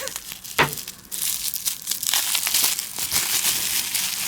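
Packaging crinkling and rustling as it is unwrapped by hand, with a sharp click about half a second in.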